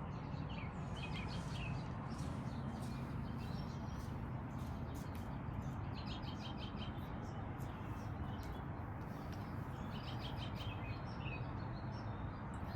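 Small birds chirping in short, quick clusters, about three times, over a steady low hum and hiss.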